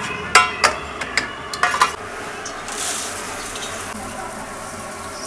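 Stainless-steel momo steamer pans clanking against each other several times with a ringing metallic knock, then a steady rushing hiss of dry cornflakes being poured from a steel tray into a steel bowl.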